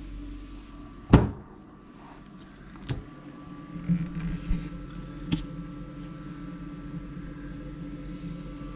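Lid of a portable compressor fridge-freezer shutting with a loud thud about a second in, followed by a few lighter knocks, over a steady hum.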